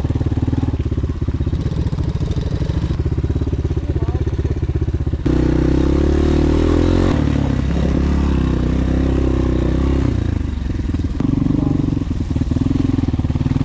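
Small motorbike or ATV engine running with rapid, even firing pulses; about five seconds in it revs up and holds higher, then drops back to idle near ten seconds.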